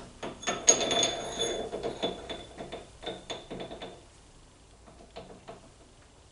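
A lathe chuck being worked to clamp a steel bar: a quick run of metal-on-metal clicks and clinks with a faint ring, thinning out after about four seconds to a few light ticks.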